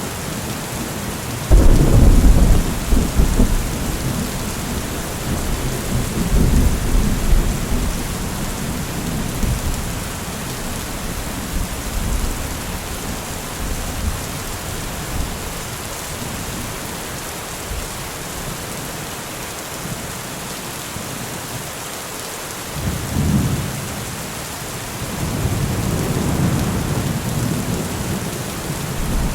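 Steady heavy rain with thunder: a sudden loud rumble about a second and a half in that rolls on for several seconds, then more rumbles of thunder near the end.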